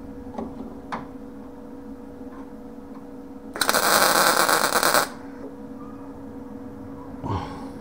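Wire-feed welder striking an arc and laying a tack weld on a steel patch panel: a loud, crackling sizzle that starts about three and a half seconds in and lasts about a second and a half.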